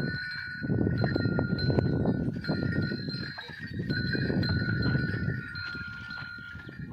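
Bells on a pair of ploughing bulls ringing steadily as the team works the field. A rough rustling noise swells twice underneath.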